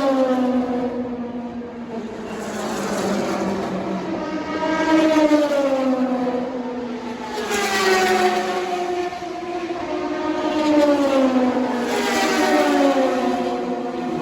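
WEC endurance race cars passing one after another at high revs, each engine note rising and falling as the car goes by.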